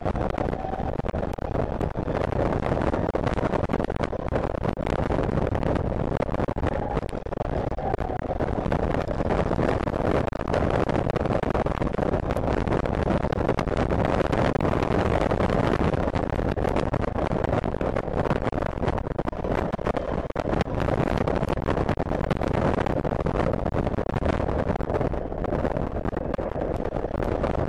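Zongshen DC electric race motorcycle at speed, heard from on board: a steady rush of wind and road noise with a thin electric motor whine that rises in pitch in the first second and again near the end.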